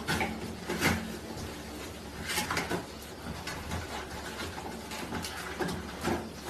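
Toilet paper rustling and tearing as a small dog paws and bites it off a wall-mounted roll holder, with the roll rattling on the holder. Irregular rustles and rips, the sharper ones about a second in and around two and a half seconds.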